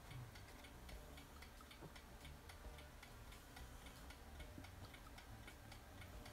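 Near silence: faint room tone with a quick, even ticking and a low steady hum.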